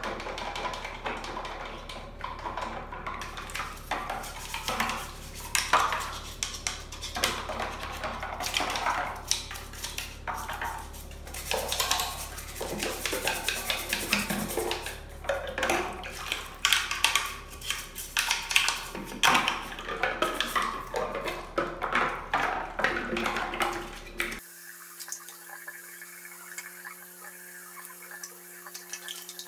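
A vacuum cleaner's clear plastic dust bin and filter parts being scrubbed with a toothbrush in a sink of soapy water, clattering and knocking against each other and the basin with splashing. Near the end this cuts to a tap running steadily into the sink.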